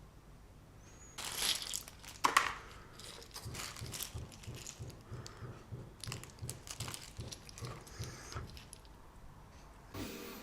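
Plastic packaging crinkling and rustling as it is handled, with scattered clicks and knocks and one sharp click about two seconds in. Music begins at the very end.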